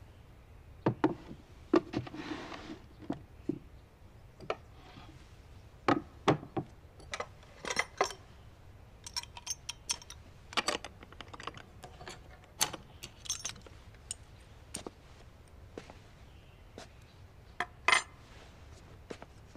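Traditional brass bar-key padlock being worked open and handled: a run of small, irregular metal clicks and clinks, with a brief rustle about two seconds in.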